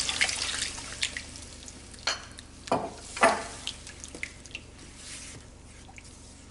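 Water pouring from a glass jug into a pan of spinach puree, trailing off about a second in, followed by a spatula stirring the thick puree with three short wet scrapes.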